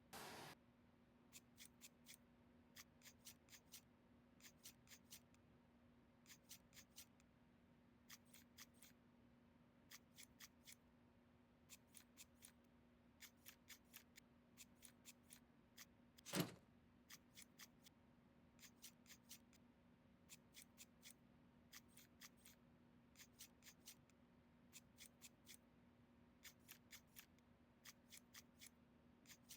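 Faint, sharp clicking in quick clusters of three to five, a cluster about every second and a half to two seconds, over a low steady hum, with one louder knock about halfway through.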